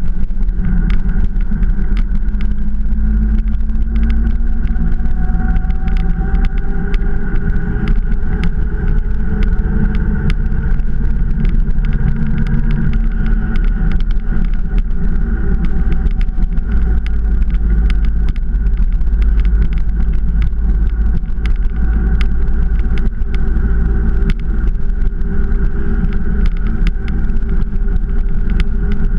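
Motorcycle engine running at cruising speed, its pitch drifting slowly up and down, with strong wind noise on the microphone.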